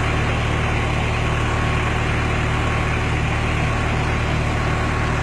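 Flatbed tow truck's engine idling steadily with a low, even hum.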